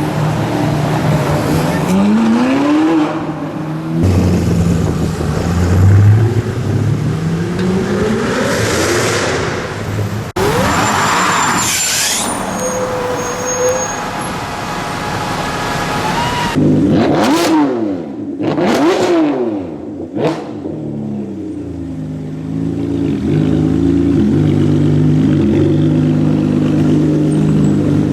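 Supercar engines, a string of short takes: cars accelerating hard with the engine note climbing, then several quick revs that rise and fall sharply, and finally an engine running at a steady low rumble near the end.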